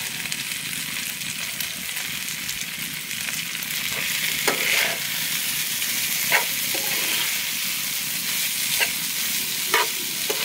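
Leftover rice sizzling as it is fried with vegetables in a pan, a steady hiss, with a metal spatula scraping against the pan a few times as the rice is stirred in.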